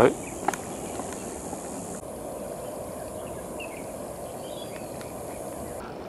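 Steady outdoor hillside ambience: a high, even insect buzz over a low rustle. The buzz drops a little about two seconds in and cuts off suddenly near the end.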